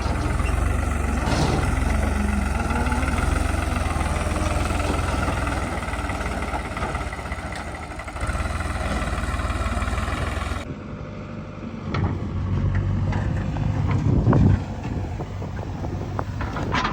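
Diesel engines of heavy earthmoving machinery running with a steady low drone. Partway through the sound changes abruptly, and a few knocks follow, with one loud thump.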